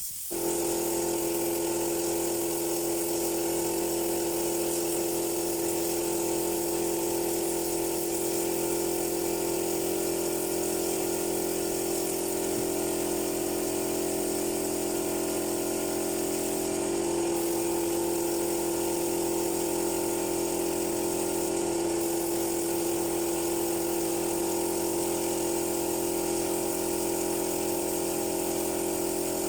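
A small electric motor starts up and runs steadily at an even pitch, with a hiss over its hum.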